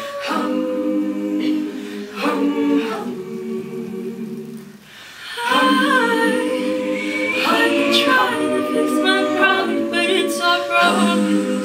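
A women's a cappella group singing, the voices holding chords together. After a short drop in level near the middle, a solo voice carries a melody over the group's backing chords.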